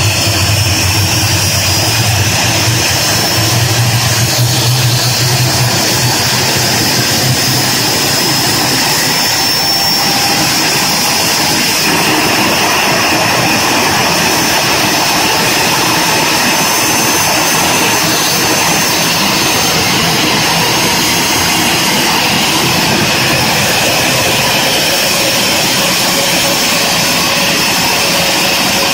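Embraer E190's GE CF34-10E turbofan running during its start. A high whine rises slightly over the first twenty seconds or so and then holds, over a steady rush of air. A low hum fades out about eight seconds in.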